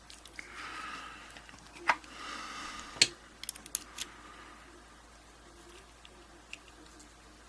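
Small metal parts of a disassembled pin-tumbler padlock being handled: light scraping, then a few sharp metallic clicks, three of them in quick succession around the middle.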